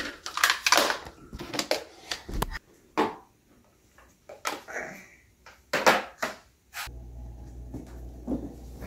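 Scattered short knocks, clicks and rustles of objects being handled, irregular and with quiet gaps between. A steady low hum comes in about seven seconds in.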